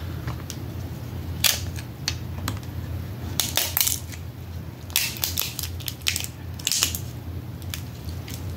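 Crab shells cracking as they are broken open by hand: sharp cracks in short clusters, about a second and a half in, around three and a half seconds, around five seconds and near seven seconds.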